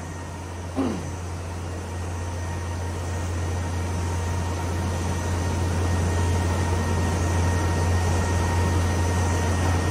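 Automatic cardboard V/U grooving and corner half-cutting machine running steadily with a paperboard sheet fed through, a low hum under an even mechanical noise with a few faint steady tones. It grows gradually louder over the first several seconds.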